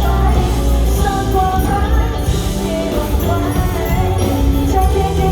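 A pop song performed live through a PA: a singer's voice over a band with a heavy, steady bass.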